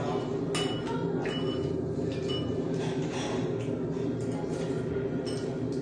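Spoon and chopsticks clicking now and then against bowls and plates as people eat, over a steady low background hum.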